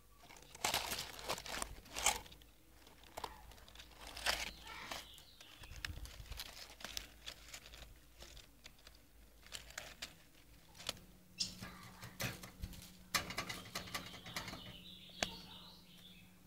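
Irregular rustling, scraping and sharp clicks, with a low steady hum starting about eleven seconds in.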